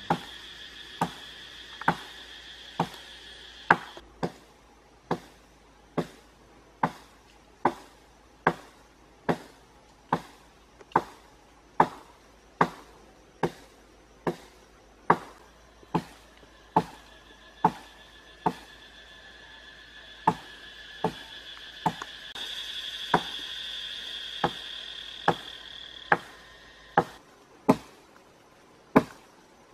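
A blade chopping into a tree branch in sharp, evenly spaced strokes, about one a second. A steady high two-tone drone runs underneath for the first few seconds and again from about 17 to 27 seconds in.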